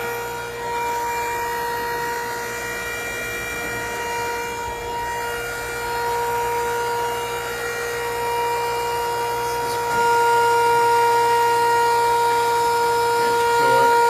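Hydraulic power unit running: the electric motor and pump give a steady whine over a mechanical hum, which gets louder about ten seconds in.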